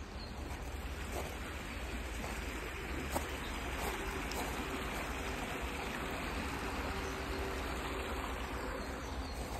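Small shallow stream running over stones, a steady sound of flowing water.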